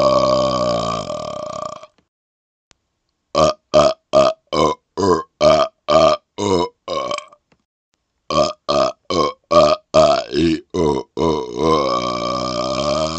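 A man burping on purpose close to a laptop microphone. A long drawn-out burp ends about two seconds in; then come two rapid-fire runs of about ten short burps each, two to three a second, with a pause between; then another long burp runs on near the end.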